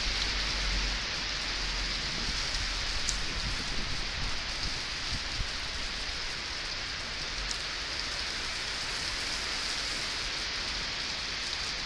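Heavy rain falling steadily on a paved street and pavement, an even hiss of pouring rain and splashing.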